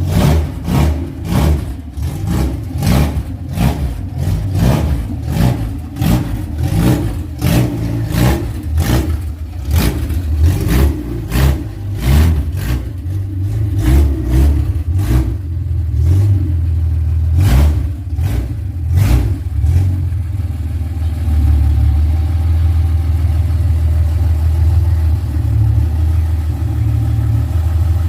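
Six-cylinder car engine revved in a quick series of sharp throttle blips, one or two a second, over a low rumble. About twenty seconds in, it settles into a steady, deep idle.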